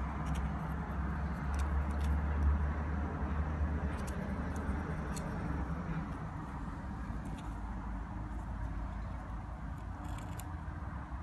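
Steady low background rumble, a little stronger in the first few seconds, with a few faint, scattered light clicks.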